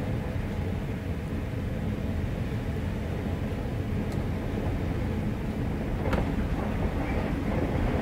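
Wind howling through a cabin door: a steady, deep rushing noise, with a faint wavering whistle coming in near the end and a light click about six seconds in.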